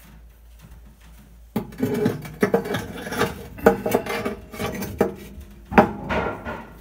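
A firebrick scraping and knocking against the steel firebox and neighbouring bricks of a Regency i2400 wood-burning insert as it is pushed by hand into its retaining channel, a tight fit where debris is left in the channel. Quiet for about the first second and a half, then gritty scraping with repeated knocks, the loudest knock near the end.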